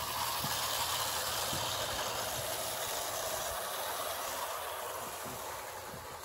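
Bassett-Lowke clockwork 4-4-0 locomotive running, its wound-spring motor whirring and its tinplate coaches rattling over the track, fading toward the end.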